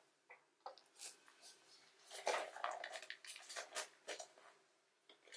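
Rustling and crinkling of trading-card packaging being handled and opened, a blaster box and its wrapped packs: short, irregular bursts of crackle.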